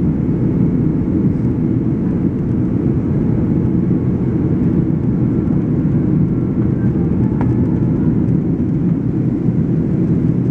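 Steady cabin noise inside a Boeing 767-300ER in flight on approach: engine and airflow noise that stays even throughout, heaviest in the low end.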